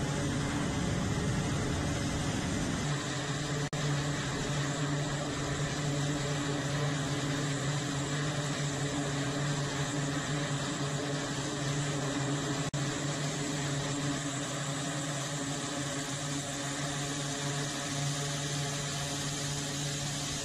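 Aircraft engines running on a carrier flight deck: a loud, steady drone with a strong low hum, mostly from an E-2 Hawkeye's twin turboprop engines as it taxis, with a rougher, louder rush in the first three seconds.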